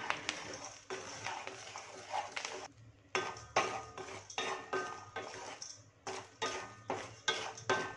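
A spatula scraping and stirring through coarse salt and chickpeas in a steel pan as they dry-roast, in repeated strokes about twice a second with a short pause about three seconds in.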